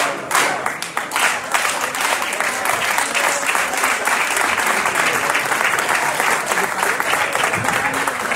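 Auditorium audience applauding: clapping in unison at about two and a half claps a second for the first second or so, then breaking into steady continuous applause.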